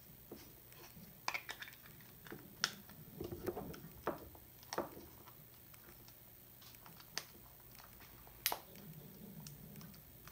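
Scattered small plastic clicks and rustles as the hard white cable-wrap insert of Apple EarPods is pushed into its clear plastic case and the case is pressed shut, with the sharpest click about eight and a half seconds in.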